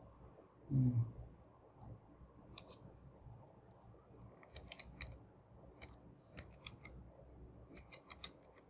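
Faint computer keyboard keystrokes and mouse clicks, coming singly and in small quick clusters as a password is typed into a login field. A short low sound about a second in is louder than the clicks.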